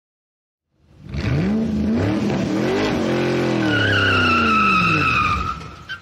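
A car engine revving up and then slowly winding down, with tyres squealing in a high whine through the second half that sinks a little in pitch; it starts about a second in and fades out quickly near the end.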